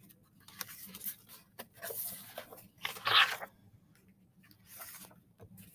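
Pages of a picture book being handled and turned close to the microphone: a run of irregular rustles and crinkles, loudest about three seconds in.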